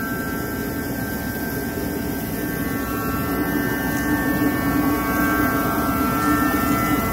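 Forced-air kerosene heater running steadily with a constant rushing noise and hum, slowly getting louder.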